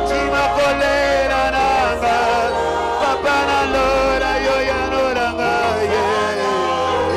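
Gospel worship music with singing over a bass line and a light beat.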